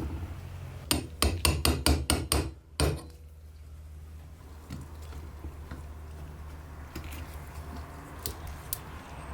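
A quick series of about eight sharp hammer taps, over a low steady hum.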